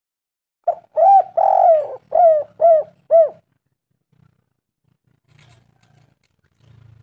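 Spotted dove (tekukur) cooing, a lure call for other doves: one phrase of about six notes, a longer coo early on followed by three short arched coos.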